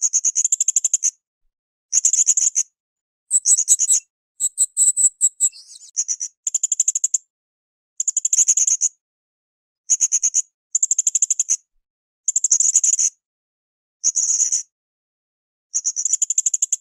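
Srindit (hanging parrot) calling: short bursts of rapid, shrill, high-pitched chattering notes, each under a second long, repeated about every second and a half. For a couple of seconds near the start the phrases change to a higher, more broken rattle.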